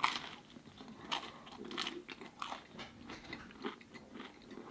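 A person biting into a slice of frozen pepperoni pizza with a baked-crisp crust, a crunch right at the start, then chewing with a run of irregular crunches and crackles.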